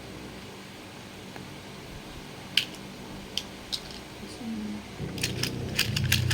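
Hard plastic toy parts clicking as they are handled and fitted together: a few single clicks, then a rapid run of clicks with a low hum under it near the end.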